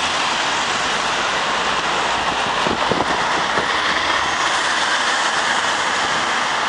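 Steady noise of city street traffic, with a few short knocks about three seconds in.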